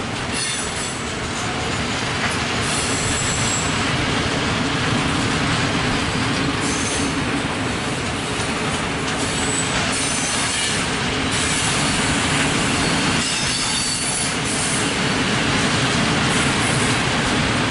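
A freight train of open wagons rolling past, a steady rumble and rattle of wheels on the rails, with brief high-pitched wheel squeals now and then.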